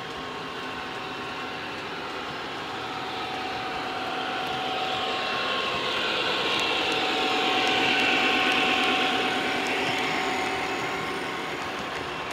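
O gauge model freight train, Lionel diesel locomotives hauling intermodal container cars on three-rail track, running past with a steady whine and rapid clicking of wheels on rail. It grows louder to a peak about eight seconds in, then fades as the cars roll by.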